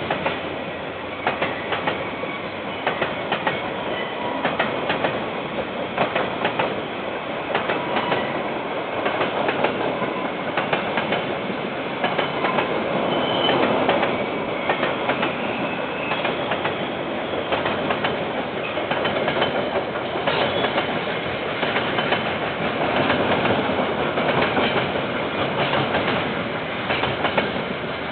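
KiwiRail train wagons rolling past steadily, their wheels clicking over rail joints in a continuous clatter, heard through a security camera's microphone.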